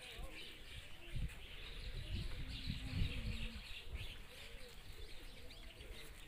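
Small birds chirping busily and overlapping, with faint distant voices and a few low thumps.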